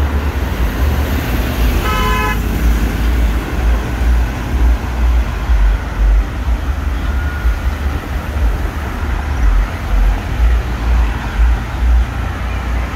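Road traffic with a loud, uneven low rumble; about two seconds in a vehicle horn gives one short toot.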